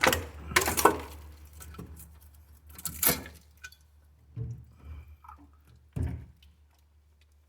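Metal clanks and clinks as the removed cylinder head of a small three-cylinder John Deere diesel is set down and handled. The loudest clatter comes right at the start and again just under a second in, followed by single knocks about three, four and a half and six seconds in.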